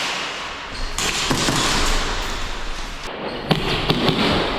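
Airsoft gunfire during a speedsoft drill: sharp pops and BB impacts on bunkers, over a steady rushing noise. The clearest knocks come about three and a half and four seconds in.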